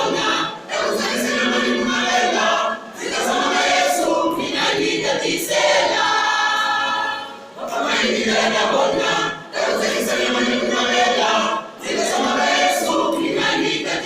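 A choir singing a gospel hymn a cappella, in phrases with short breaths between them.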